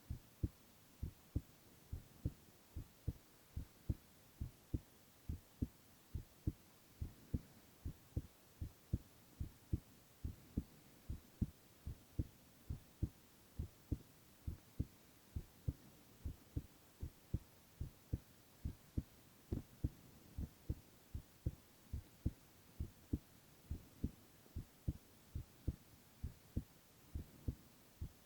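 A man's heartbeat heard up close: steady low double thumps, lub-dub, repeating at an even resting rhythm.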